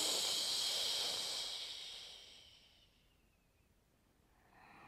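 A woman's long hissing "shhh" exhalation, the liver sound of the Taoist six healing sounds, fading out about three seconds in.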